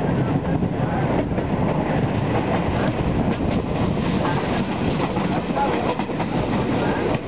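Coaches of an Indian Railways express train rolling past at speed: a steady loud rumble of wheels on rail with clattering over the rail joints.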